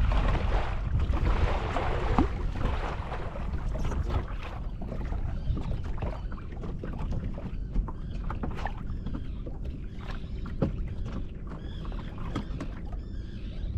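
Wind on the microphone and water moving around a small open fishing boat. The noise is loudest over the first few seconds, then eases, with scattered light knocks and clicks through the rest.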